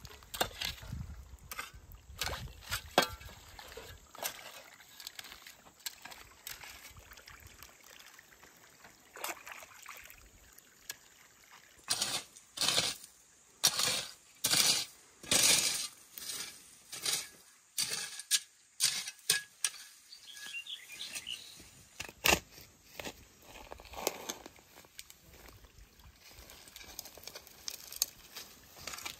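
A spade cutting and scraping into damp soil: a run of short strokes, about one a second, through the middle, among scattered small clicks and knocks of earth.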